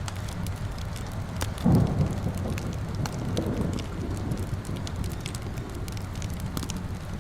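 Fire in a fireplace crackling with sharp pops over steady rain. About two seconds in, a low rumble swells and fades away over a couple of seconds.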